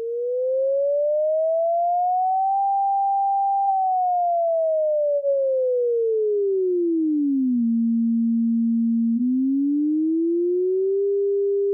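Steady pure sine tone from a frequency generator played through an amplifier's speaker, its pitch swept by hand at a constant loudness: it rises for about two and a half seconds and holds, falls to a low pitch by about seven and a half seconds in and holds, then rises back to its starting pitch near the end.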